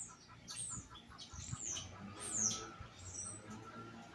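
Small birds chirping: a string of short, high calls that slide downward in pitch, some overlapping. A faint rapid ticking runs under them in the first half.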